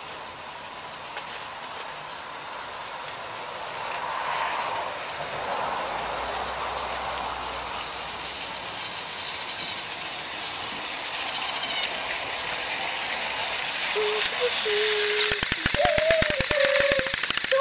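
Battery-powered TrackMaster toy engine (Luke, pulling a truck) whirring along plastic track, getting steadily louder as it approaches. Near the end, as it passes close, the hum turns into rapid, even clicking of its motor and wheels.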